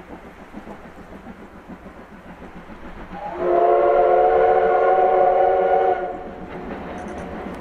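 C10 steam tank locomotive's steam whistle blown in one long blast of about three seconds, starting about three seconds in. Around it is the low running noise of the approaching train.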